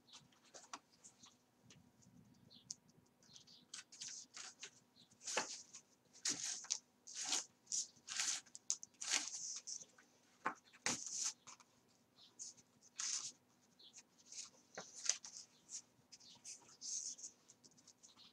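Thread being drawn through and around the folded paper signatures of a hand-sewn coptic-stitch book, with the paper rustling as it is handled: a string of short, irregular swishing hisses.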